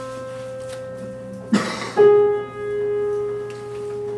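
Grand piano playing single notes of an interval: a held note fades, then about two seconds in a lower note is struck and rings on. The interval is named a minor sixth. A short breathy noise comes just before the second note.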